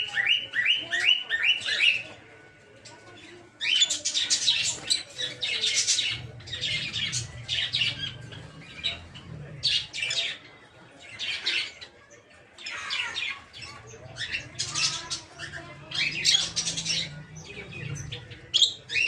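Peach-faced lovebirds chattering. A quick run of rising chirps opens it, then shrill, harsh chirping comes in repeated bouts with short pauses between.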